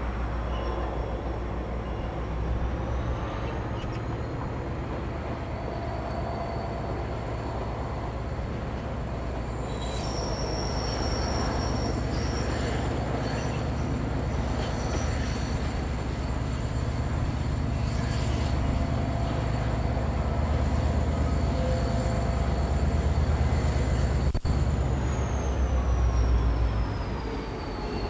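Irish Rail 071-class diesel locomotive (EMD 12-cylinder two-stroke engine) running with a deep steady rumble as it hauls a long train of rail-carrying wagons, growing louder as it approaches and easing a little near the end.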